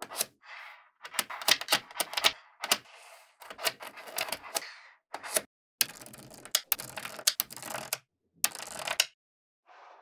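Small neodymium magnetic balls clicking and rattling as they snap together while strips are laid against a sheet of balls and pressed flat. The clicks come in quick dense runs, broken by several brief silences.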